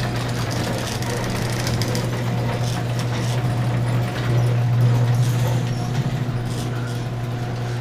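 Garage door opener motor and drive running steadily as the door closes, a loud, even hum.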